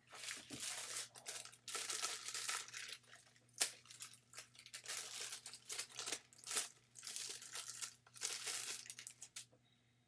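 Wrapping of a new USB cable being pulled open by hand: irregular crinkling and tearing with two sharp crackles, stopping shortly before the end.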